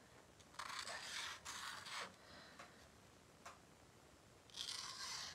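Tip of an oil-based gold paint pen scratching across paper as small heart outlines are drawn, in two short strokes: one from about half a second to two seconds in, another near the end.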